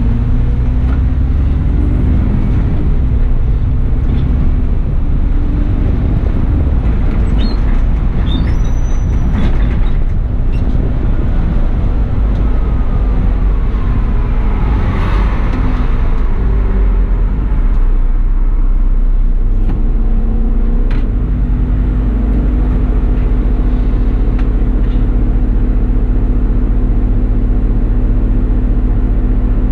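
Diesel bus engine running steadily, heard from the driver's seat. Its note shifts about two-thirds of the way through, and there is a brief hiss about halfway.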